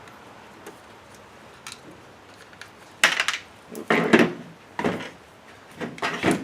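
Hard clattering and rattling of a car CD/cassette receiver's metal chassis and plastic parts as it is handled and pried apart by hand: a few faint clicks, then four loud clattery bursts in the second half.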